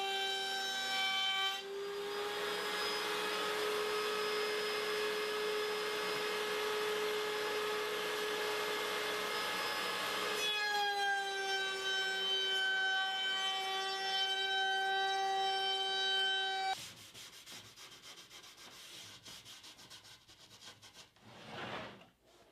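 A stationary woodworking machine runs with a steady whine while it cuts through a maple board, a loud rasping cut that lasts about nine seconds, then runs free again. It stops abruptly, and quieter, irregular rubbing and scraping of wood follow.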